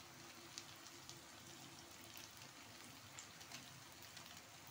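Faint sizzling of potatoes and onions frying in mustard oil, with a few small scattered crackles.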